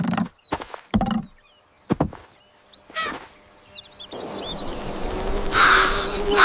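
Several sharp knocks or thunks, then a steady buzzing starts about four seconds in and grows louder.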